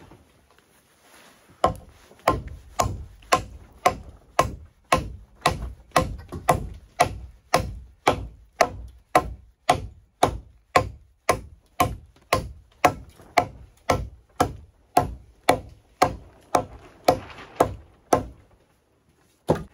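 Axe chopping into a wooden log, cutting out a groove: a steady run of sharp strikes about two a second, starting a couple of seconds in, with a pause and one last blow near the end.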